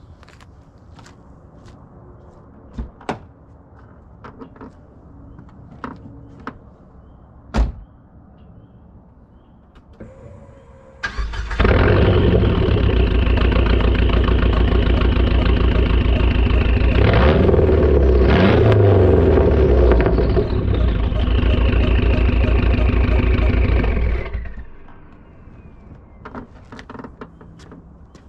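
Dodge Neon SRT-4's turbocharged four-cylinder starting about eleven seconds in and running loud through a straight-pipe exhaust, its cam timing restored after a broken camshaft key, with a brief change in engine speed about halfway through, then shut off after about thirteen seconds. Before the start, scattered clicks and knocks.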